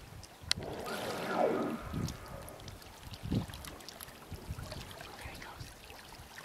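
Humpback whale exhaling at the surface: a loud breathy whoosh of its blow from just under a second in to about two seconds in.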